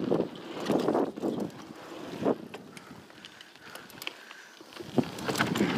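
Mountain bike riding down a rough dirt trail: tyres on loose dirt, with sharp rattles and knocks from the bike over bumps and wind buffeting the camera microphone. It quietens through the middle and picks up again near the end.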